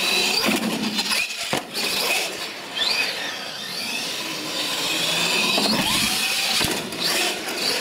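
Electric RC monster truck's motor whining, rising and falling in pitch as the throttle is worked, with two sharp knocks a little over a second in.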